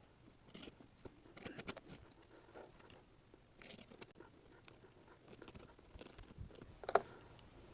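Faint rustling and crinkling of headliner fabric being handled and cut, with scattered small crackles and one sharper click near the end.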